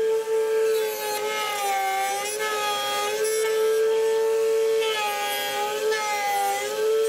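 Table-mounted router spinning a half-inch bit with a steady high whine. Several times the pitch sags and a rough cutting noise rises as a softwood jaw is fed along the fence to rout a slot.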